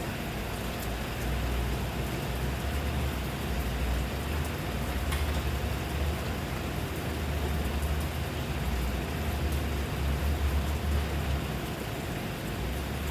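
Steady rain falling, an even hiss with a few single drops ticking, over a continuous low rumble.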